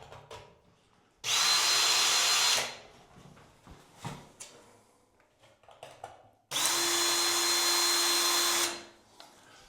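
Power drill with a 1/8-inch bit drilling pilot holes through the metal of a shower door catch, running at a steady speed in two bursts: one of about a second and a half, then one of about two and a half seconds.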